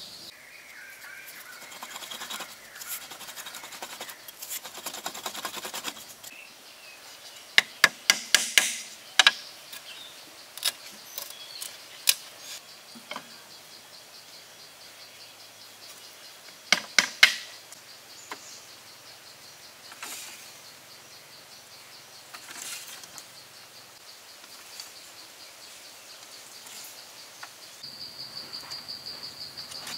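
Split bamboo slats being handled and fitted onto a bamboo frame: rustling and scraping at first, then loud clusters of sharp wooden knocks about eight and seventeen seconds in, with scattered single knocks, over a steady high insect trill.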